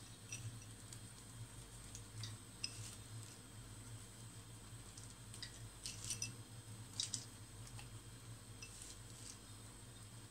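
Faint, scattered light clicks and clinks of flaked almonds being picked from a ceramic dish and sprinkled over dough rolls in a metal tube pan, over a steady low hum.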